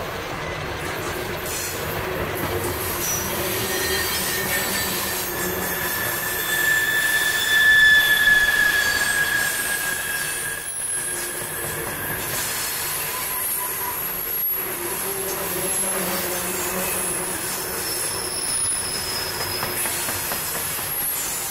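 CSX freight train of open-top hopper cars rolling past, its steel wheels squealing against the rails on the curved track over a steady rumble. The squeal comes as long high tones that slide slowly in pitch and is loudest about eight seconds in.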